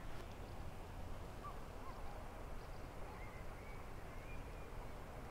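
Faint outdoor ambience with a low rumble and a few short, distant bird chirps, the clearest about a second and a half in and again around three to four seconds in.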